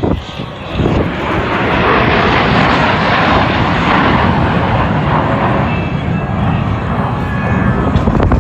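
Jet noise from US Air Force Thunderbirds F-16 fighters flying past, a loud rushing sound that swells about a second in and eases a little near the end.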